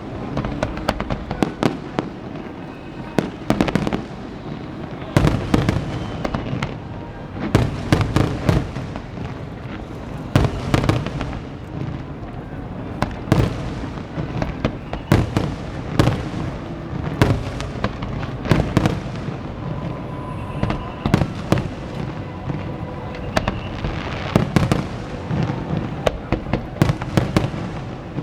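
Aerial fireworks display: many shells bursting one after another, loud bangs and crackles coming in dense clusters every second or two.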